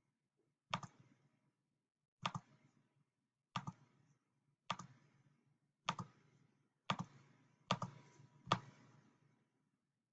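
Small switches on a breadboard logic circuit being clicked to set its inputs: eight sharp clicks, roughly one a second, coming a little closer together near the end.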